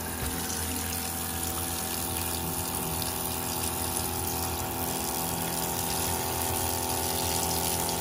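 Hot water spraying in shower mode from a RinseKit Pro portable sprayer onto an iced-up evaporator coil to melt the ice: a steady hiss of water. A steady mechanical hum runs underneath.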